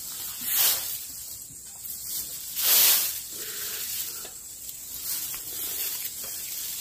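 Rustling in tall grass, heard as three short hissing bursts, the loudest about three seconds in.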